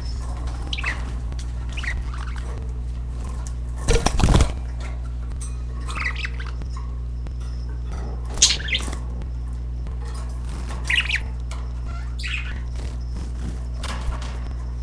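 Pet budgerigars giving short, scattered chirps and squawks every second or two, with one brief loud burst of noise about four seconds in, over a steady low hum.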